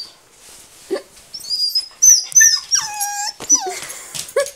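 Dog whining and yelping: a string of high, gliding whines, one long falling whine about three seconds in, and short yelps near the end. This is the excited whining of a dog in its harness, eager to go out for a walk.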